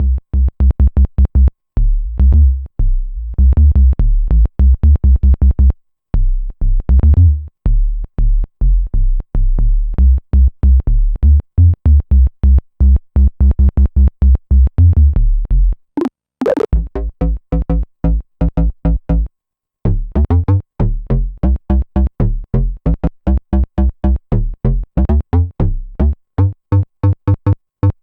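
Arturia MiniBrute 2 analog synthesizer playing a fast staccato bass line: a run of short, low notes stepping in pitch, broken by a few short pauses, with a brief high sweep about halfway through.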